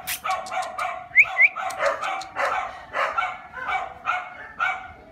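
Dogs barking in a fast, steady run of short barks, a few a second, with a couple of higher rising yips about a second in.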